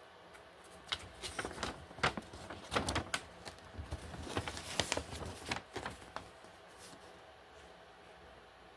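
Paper instruction manual being handled and unfolded: irregular rustling and crinkling with a few sharp clicks, dying away about seven seconds in.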